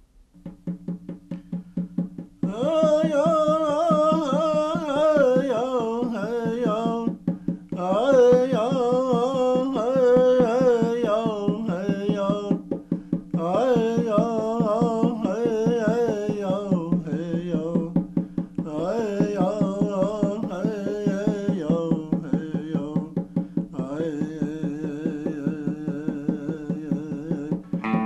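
A man chanting while beating a steady rhythm on a hand-held hide frame drum. The drum plays alone at first, and the voice comes in about two and a half seconds in, singing in phrases with short pauses between them.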